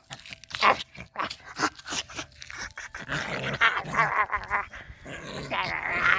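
Tiny puppy growling in play, a run of short growls and grumbles with a wavering pitch.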